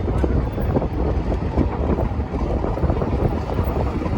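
Wind buffeting the microphone outdoors: a loud, uneven low rumble, with traffic noise faintly underneath.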